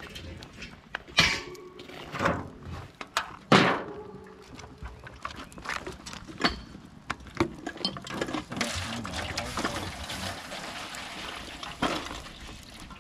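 Water poured from a plastic jug into an aluminium foil pan on a campfire grill grate, a steady splashing stream in the second half as the pan fills. Before it, a few sharp knocks in the first four seconds.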